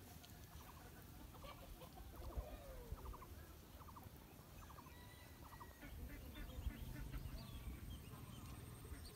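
Faint clucking of fowl: short runs of rapid pulsed notes, repeated several times, over a low rumble.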